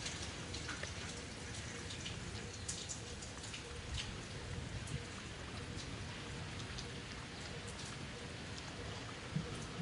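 Outdoor forest ambience: a steady hiss with scattered small ticks and taps, like drips or twigs, and no monkey calls.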